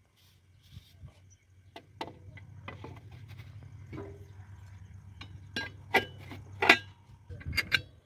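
Plastic and metal clicks and knocks as the clear plastic bowl and metal cap of a JCB 3DX backhoe loader's air-intake pre-cleaner are handled and seated by hand; a few sharp knocks stand out in the second half, with a quick cluster of clicks near the end.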